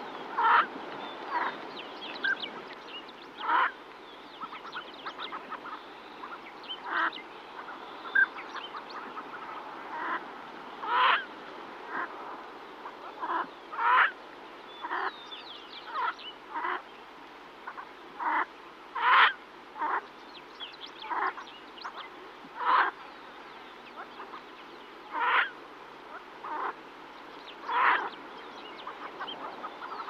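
Female yellow-billed pintail calling to her ducklings: short calls repeated at uneven gaps of one to a few seconds. A songbird's thin, high notes sound faintly between them.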